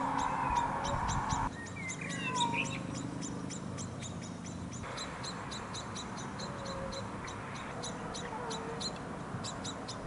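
Songbirds calling from the gardens: a steady series of short high chirps, about three a second, with a few gliding calls over it about two seconds in. The background noise under the birds drops off abruptly about a second and a half in.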